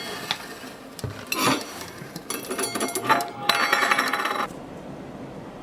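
Clinking and rattling of hard metal or crockery objects, like cutlery and dishes knocked about, in several bursts that ring and stop about four and a half seconds in.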